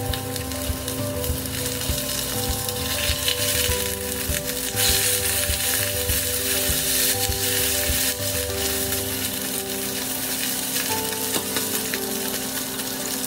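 Salmon fillets sizzling in hot oil in a cast iron skillet. The sizzle swells for a few seconds around the middle while the fillets are turned onto their flesh side with a silicone spatula.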